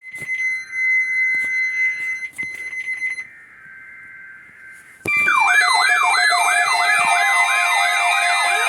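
Steady high electronic tones broken by clicks, then a quieter lower tone. About five seconds in, a loud electronic siren alarm starts, its pitch sweeping up and down about twice a second over steady high tones.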